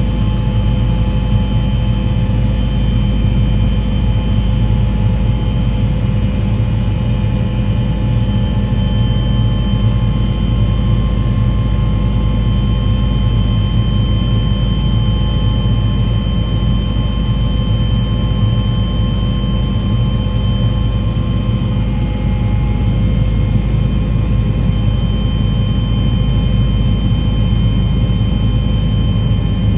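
Steady, loud drone of an aircraft engine, with several steady whining tones over a deep rumble that hardly change.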